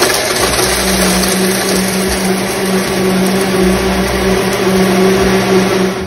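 Oster Ball Mason Jar personal blender running, blending a smoothie in its jar, with a steady motor hum under the loud whirr of the blades.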